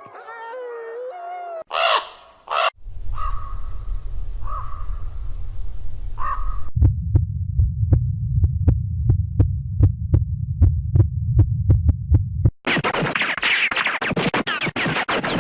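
A string of short, unrelated sound effects cut one after another. First come a few brief animal calls, then a low steady hum. Next is a low throbbing with about three sharp ticks a second, and near the end a dense stretch of noisy rattling.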